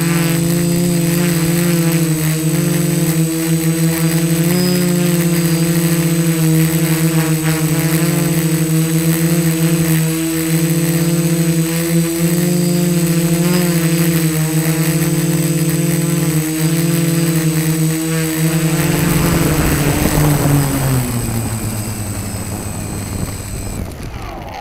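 DJI F450 quadcopter's four brushless motors and propellers humming close to the onboard camera, the pitch wavering with throttle changes. About nineteen seconds in, the hum falls in pitch and fades as the motors spool down after landing.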